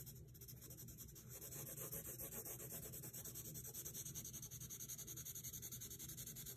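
A blue coloured pencil shading on paper: faint, quick, even strokes of the pencil tip rubbing across the sheet.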